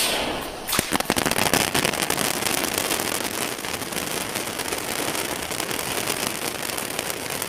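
Bus-shaped novelty firecracker fountain going off: a rushing hiss as it catches, then steady, dense crackling as it sprays sparks and crackling stars.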